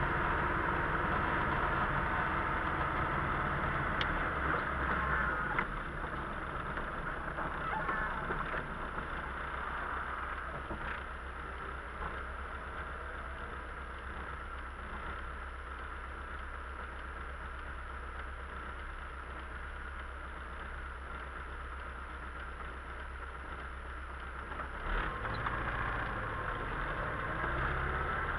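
Inside a moving car on a wet road: a steady low engine hum with the hiss of tyres on wet pavement, quieter through the middle and louder again near the end.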